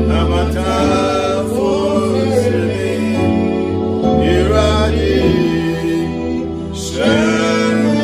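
Gospel song: singing over sustained chords and a steady bass.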